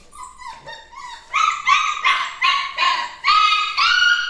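Labrador puppy crying during its first bath: a string of high-pitched whimpers and yelps, faint at first, then louder and quicker from about a second in, about seven cries in a row.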